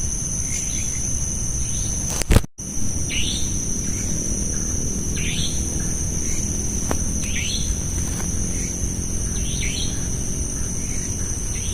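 A night bird calling a short falling note over and over, about once every two seconds, over a steady high insect drone. There is a brief knock and a moment of dropout about two and a half seconds in.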